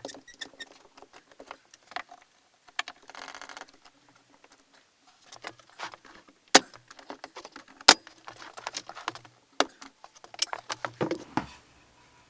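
Scattered clicks, rustling and knocks of wooden boards and tools being handled, with a brief scraping patch about three seconds in and four sharp single knocks later on.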